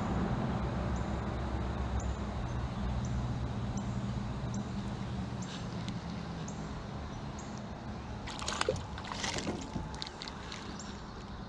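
A hooked crappie splashing and thrashing at the water's surface as it is lifted out, in a cluster of splashes from about eight to ten seconds in. Under it runs a steady low hum that slowly fades, and short high chirps repeat about once a second.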